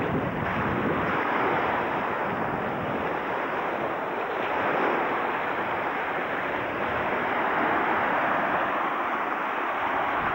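Steady rushing noise of surf, swelling and easing every few seconds.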